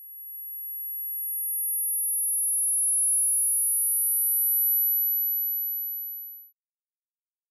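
Three very high-pitched steady sine tones, each at a slightly different pitch, overlapping in a staggered sequence so that one starts as another stops. They fade in over the first couple of seconds and cut off about six and a half seconds in. This is a synthesized tinnitus neuromodulation tone sequence.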